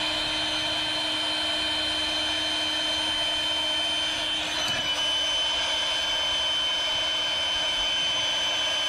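Small electric inflator pump of the kind made for air mattresses and pool toys, running steadily with a high-pitched whine over a lower hum. It is blowing low-pressure, smoke-filled air into an ATV snorkel to find leaks.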